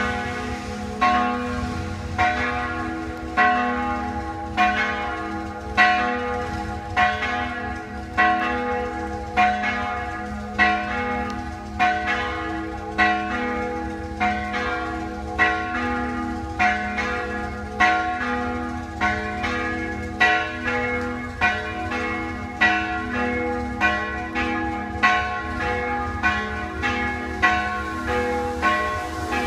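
Three church bells swung and rung together (Swedish sammanringning), their strokes coming about once a second and the ringing of each overlapping the next.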